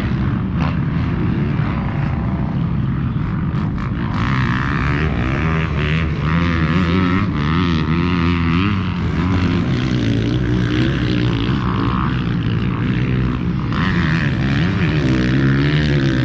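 Single-cylinder two-stroke engine of a 2019 Yamaha YZ250X dirt bike running on the move, its revs rising and falling with the throttle.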